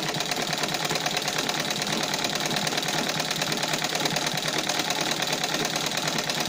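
Juki Rotalix rotary-hook sewing machine stitching fabric, running steadily with a rapid, even needle rhythm, quite smoothly.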